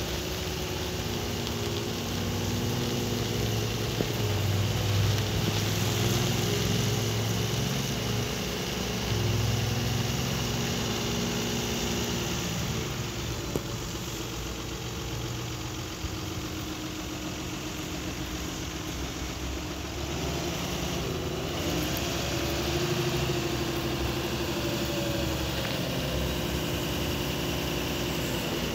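Komatsu WA270-7 wheel loader's diesel engine running steadily while the machine moves and raises its boom. The engine note grows heavier and louder for a few seconds several seconds in, and again near the end.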